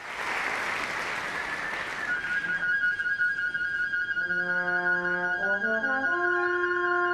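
A hiss that fades out over the first few seconds, then an orchestra begins an introduction: a high held note on a flute-like wind instrument from about two seconds in, joined about four seconds in by other instruments playing a slow tune of held notes.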